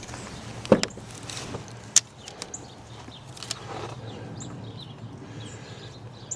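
Knocks and clicks of hands working the battery and its hold-down hardware: a sharp knock about three-quarters of a second in and a click at about two seconds, then softer rustles and knocks. Faint bird chirps can be heard in the background.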